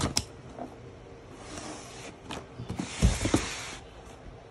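Cardboard boxes being handled and slid: a few sharp clicks at the start, then cardboard scraping and rustling, with a dull thump about three seconds in.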